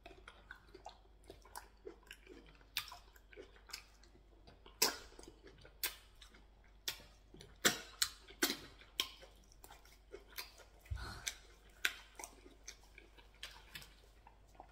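Close, wet chewing and lip smacking of a man eating pounded yam with ogbono stew and meat by hand, with irregular sharp smacks a few times a second. Around the middle he sucks stew off his fingers.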